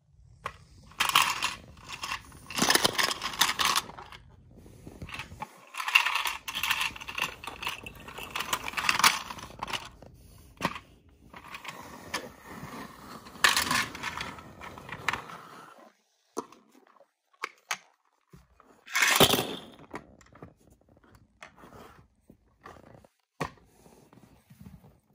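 Small plastic Micro Drifters toy cars rattling and clattering inside a plastic toy dump truck as it is pushed along the floor, in several bursts. About 19 seconds in comes a louder short clatter as the cars are tipped out onto the floor.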